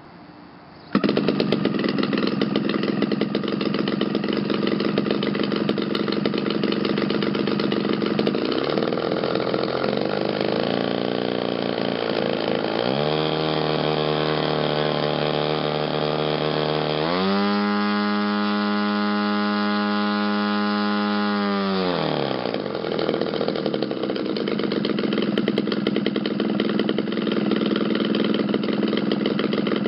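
Desert Aircraft DA-120 twin-cylinder 120cc two-stroke gasoline engine, turning a Vox 28x10 laminated wood propeller, started by hand-flipping the prop and catching about a second in. It idles, then is throttled up in steps from about eight seconds in to a high, steady run for about five seconds, and drops back to idle near two-thirds of the way through.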